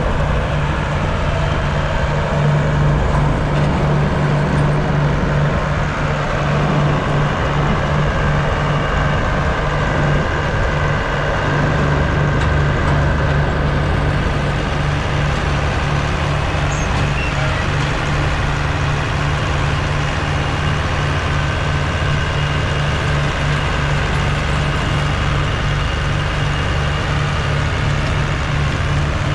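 Farm machine engine running steadily under load, a constant low hum with no change in pitch.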